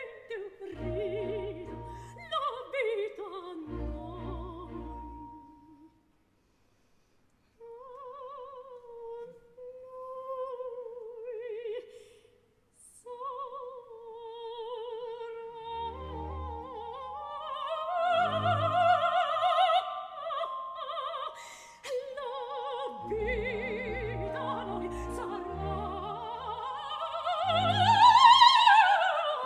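Operatic soprano singing with an orchestra: long held notes with a wide vibrato, a brief pause about six seconds in, then fuller orchestral chords. Near the end she sings a loud high phrase that climbs and falls back.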